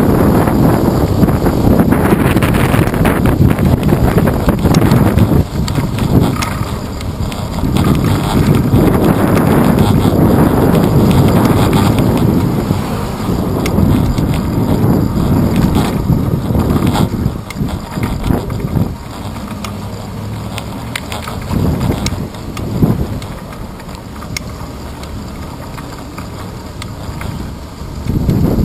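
Wind buffeting a handlebar-mounted GoPro Hero 2 on a moving bicycle, a dense rushing noise that surges and eases, with road rumble and small rattles through the mount. It drops noticeably quieter for the last ten seconds or so.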